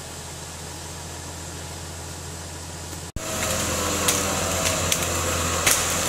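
Toyota Land Cruiser FJ80 engine idling steadily during a winch recovery. About three seconds in the sound cuts to a louder take, with scattered clicks and knocks over the idle.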